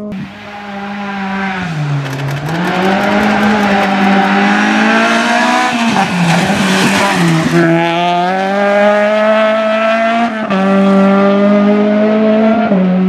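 Rally car engine running at high revs on a gravel stage, its pitch dipping and climbing again as the driver lifts and changes gear. Tyres and gravel add a rushing noise as the car passes close, about four to seven seconds in, and the engine note jumps abruptly twice near the end.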